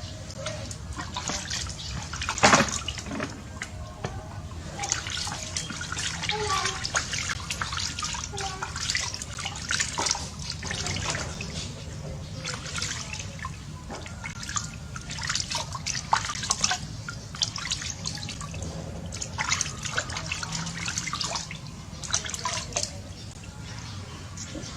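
Water splashing and dripping in a bathtub as a small monkey moves about in it, in many irregular splashes, with one sharp, louder splash about two and a half seconds in.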